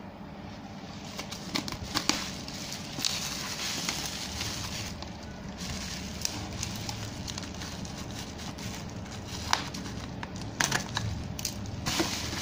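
Plastic bubble wrap crinkling and rustling as it is handled and pulled open, with scattered sharp crackles.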